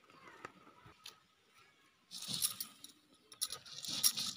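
A few faint clicks, then from about two seconds in a stone muller crushing and scraping dried red chillies, cumin seeds and garlic on a flat stone grinding slab (sil-batta), a repeated gritty crunching of stone on stone that grows dense near the end.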